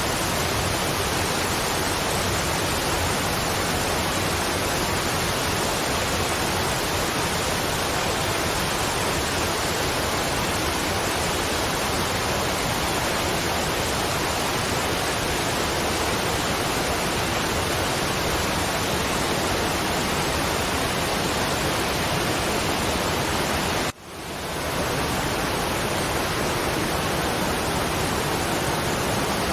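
Waterfall, a steady, even rush of falling water with no change in level. About three-quarters of the way through it drops out for an instant and fades back in over about a second.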